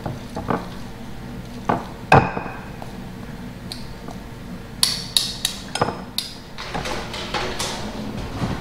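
Kitchen utensils and dishes knocking and clinking, among them a spatula against a glass mixing bowl. A few sharp taps come in the first half, the loudest about two seconds in, then a quick run of ringing clinks about five to six seconds in.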